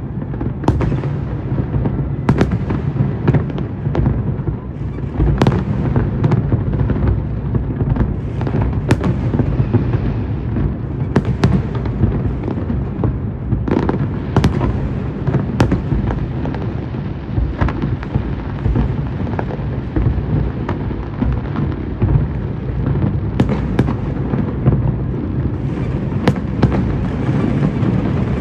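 Fireworks display: a continuous low rumble of bursts with sharp bangs cracking over it at irregular intervals, often a second or two apart.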